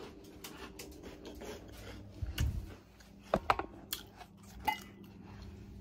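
Handling and movement noise: scattered light clicks and knocks, with a dull thump about two and a half seconds in.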